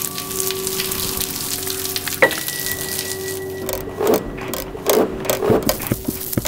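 A layered sound collage: a steady low hum under a dense crackling, sizzling texture, with a single ringing tone struck about two seconds in that fades slowly, and a few louder rustling bursts in the second half.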